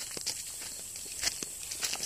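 Footsteps crunching through dry fallen leaves on grass: a few irregular short crackles.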